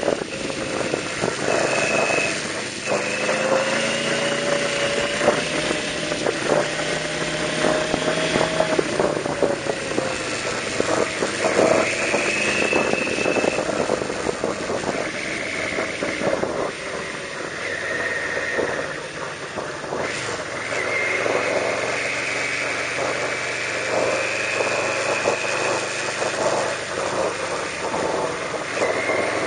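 Yamaha V-Max 1200 motorcycle's V4 engine running under way, its pitch rising and falling as the throttle is opened and closed through the bends, over a steady rush of wind noise. It eases off for a few seconds past the middle, then pulls again.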